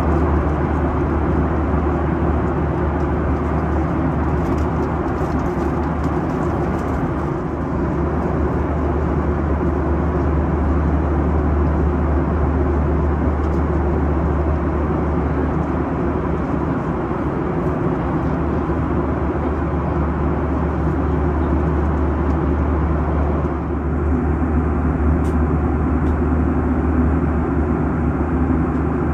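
Steady cabin drone of a Boeing 737-900ER in cruise: a constant low engine hum under an even rush of airflow, heard from inside the passenger cabin.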